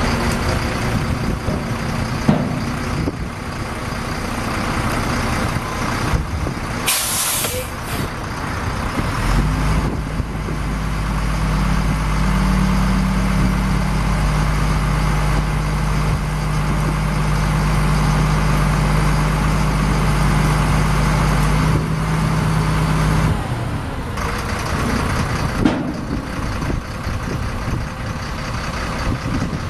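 1995 GMC TopKick dump truck's Caterpillar 3116 six-cylinder turbo diesel running, with a short hiss of air from the air-brake system about seven seconds in. For about fourteen seconds in the middle the engine settles into a steadier, heavier drone with a steady hum, then returns to its earlier, rougher note.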